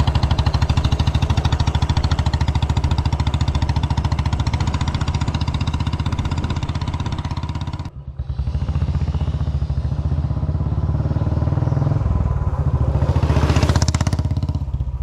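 Royal Enfield Bullet's single-cylinder engine running with a steady, even exhaust thump. The sound cuts out abruptly for a moment about eight seconds in, then resumes and swells louder and brighter near the end.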